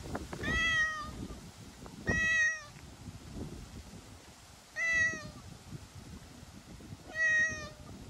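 A stray cat meowing four times, roughly every two and a half seconds; each meow is short and fairly level in pitch.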